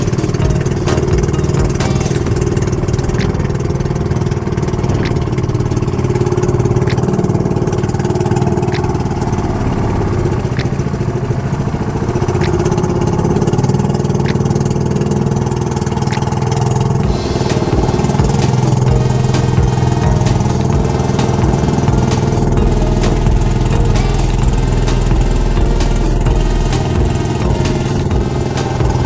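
Engine of a motorized outrigger boat (bangka) running steadily while the boat is under way.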